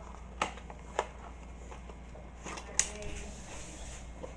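Toy car packaging being handled and opened: a few sharp clicks and small ticks, the loudest nearly three seconds in.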